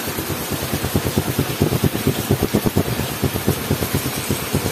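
Honda Wave motorcycle's single-cylinder four-stroke engine idling through its stock exhaust, which has three holes drilled in it, giving a quick throbbing exhaust beat. The pipe is not fully tightened at the cylinder head.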